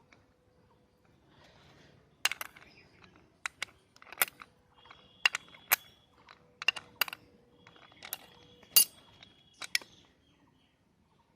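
Irregular sharp clicks and knocks, about a dozen over ten seconds, like small hard objects being handled, some followed by a faint ringing tone.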